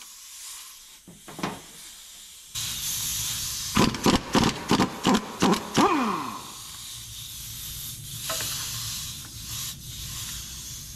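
Power impact wrench run in quick short bursts, six or seven trigger pulls in about two seconds, the motor winding down with a falling whine after each, loosening a nut on the truck's front suspension. A steady hiss runs under it from about two and a half seconds in.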